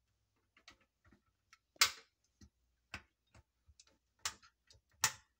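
Doors and tailgate of a 1/32-scale Toyota RAV4 model car being pushed shut by hand: a series of sharp clicks. Four are stronger, about a second apart, and fainter ticks fall between them.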